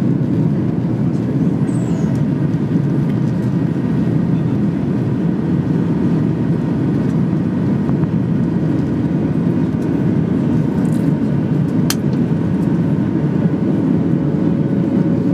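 Steady low rushing drone of a Boeing 737-800's CFM56-7B engines and the airflow around the fuselage, heard inside the cabin during the climb after takeoff. A single faint click sounds about twelve seconds in.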